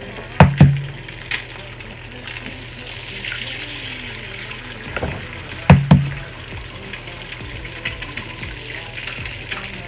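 Eggs being cracked into a hot, oiled griddle pan: two sharp cracks of eggshell, once about half a second in and again about five seconds later. Under them, the oil in the pan sizzles steadily.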